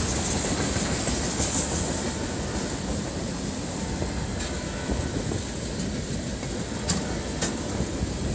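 CSX freight train cars rolling past with a steady rumble, steel wheels clacking over rail joints, with a few sharper clicks in the second half.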